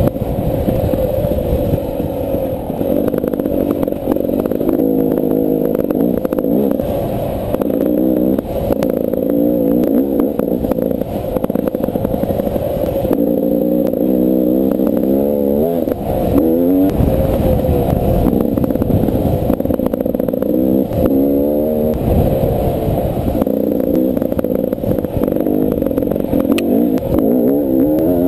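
Beta 300 RR two-stroke dirt bike engine under load, revving up and falling back again and again as the throttle is worked, its pitch rising and dropping with each burst.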